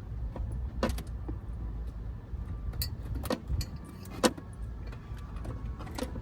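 Four sharp metallic clicks and clinks, spaced a second or two apart, from tools and a heavy battery cable being handled, over a steady low rumble.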